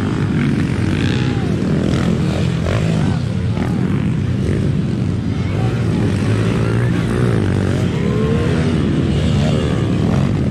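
Motocross dirt bike engines racing on the track, revving up and down as they work through the course, with the rising and falling more noticeable in the second half.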